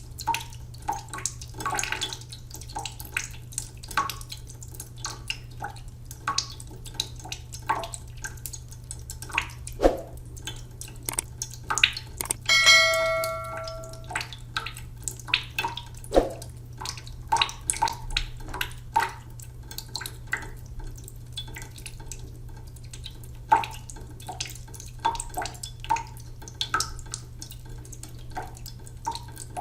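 Water dripping and splashing in irregular, plinking drops over a low steady hum. Just under halfway through, a single bell-like ring sounds and dies away over about a second and a half.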